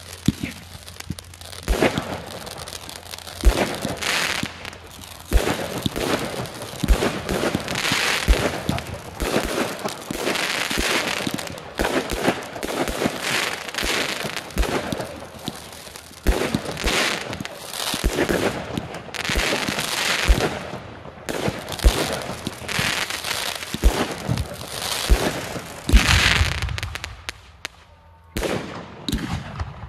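Fireworks show: shells launching with sharp thumps and bursting overhead in quick succession, about one burst every second, many trailing into crackle. The barrage dies down near the end.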